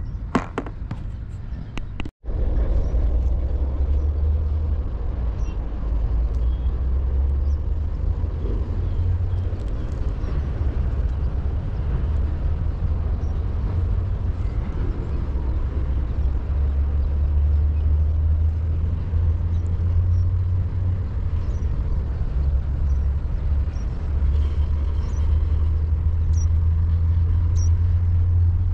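A steady low rumble runs throughout, with faint, short high chirps every few seconds. A few clicks come in the first two seconds, then the sound cuts out for an instant.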